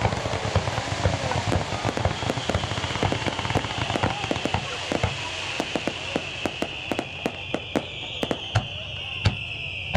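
Fireworks going off: a dense, rapid crackle of pops and bangs over a high hiss, thinning after about five seconds into separate sharp reports a fraction of a second apart.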